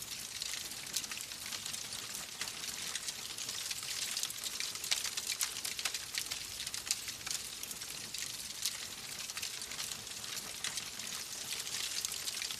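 Wood fire crackling in a fireplace: a steady hiss with many small, irregular pops and snaps.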